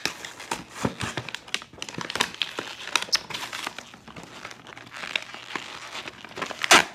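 Crinkly plastic toy packaging being torn and pulled open, an irregular crackling throughout, louder near the end.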